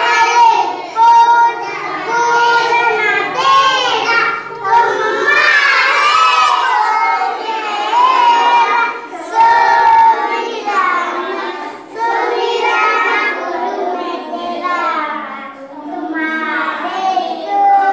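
A group of young children singing a prayer song together in unison, holding long notes between phrases.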